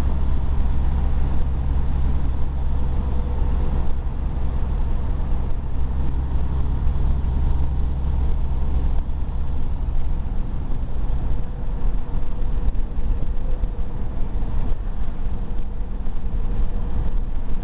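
Truck engine and road noise heard from inside the cab while cruising on a highway: a steady, loud, deep drone with a faint steady whine above it.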